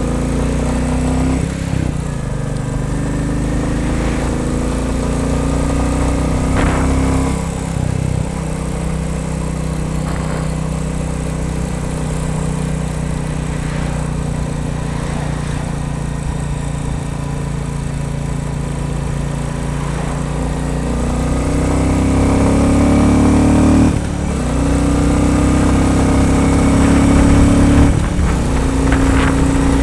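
Royal Enfield Bullet 350's single-cylinder engine running under load, the revs climbing and then dropping back sharply twice, about seven and twenty-four seconds in.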